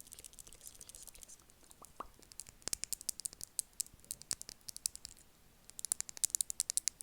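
Close-miked ASMR mouth sounds: quick, wet tongue and lip clicks, sparse at first, then coming in two dense runs, one starting about two and a half seconds in and another near the end.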